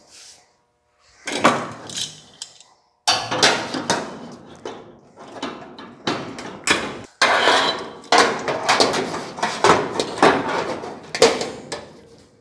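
Sheet-metal panel clanking and rattling in irregular, loud knocks as it is handled and clamped onto the truck's frame, starting about a second in.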